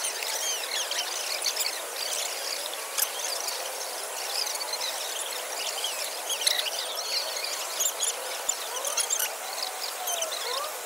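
Water jets of a large illuminated fountain display spraying and falling back, a steady hiss of water threaded with many short chirpy squeaks.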